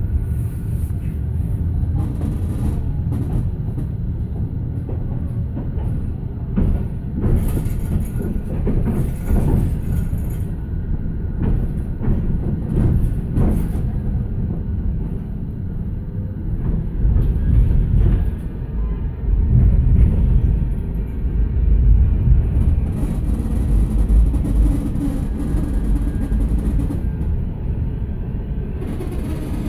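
Manchester Metrolink tram running along the track: a steady low rumble of wheels on rail, with a run of clicks and knocks over joints and points in the middle and a heavier rumble a little later.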